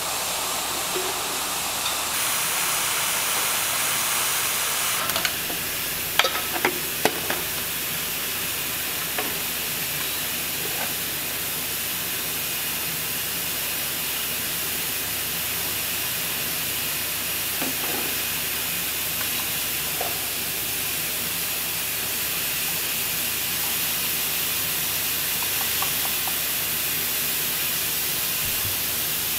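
A steady, steam-like hiss with a faint low hum beneath it, from the café's equipment. A few light clinks of glass and metal come about six to seven seconds in, with scattered softer ones later.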